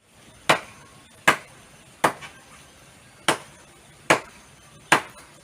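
Machete blows chopping into a tree by hand, six sharp strokes in a steady rhythm about one every 0.8 seconds.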